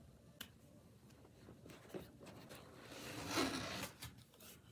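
Scissors cutting through parcel packaging: a few small snips and clicks, then a longer rasping cut or rustle of the packaging, loudest about three seconds in.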